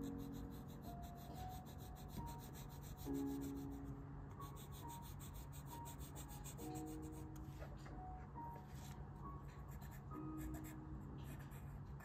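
Colored pencil scratching on paper in quick, rapid strokes, dense for the first few seconds and then more spaced out. A soft background melody of sparse notes plays underneath.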